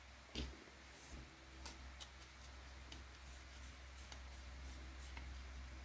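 Light clicks and taps of small RC-car parts being handled: a hex driver and the carbon-fibre chassis plate as a screw is started, with one louder knock about half a second in. A steady low hum lies underneath.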